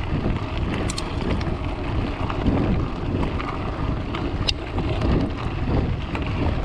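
Wind buffeting the microphone over the low rumble of a vehicle driving over rough ground, with a few sharp clicks, about a second in and again halfway through.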